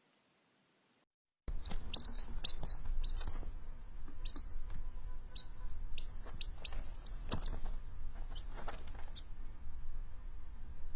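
After about a second and a half of silence, a bird chirps in rapid runs of short, high, falling notes for about seven seconds, over a steady low rumble.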